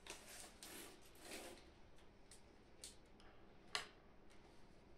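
Quiet handling sounds of gloved hands moving a wafer bar and sweets, with soft rustles in the first second and a half and one sharp click about three-quarters of the way through.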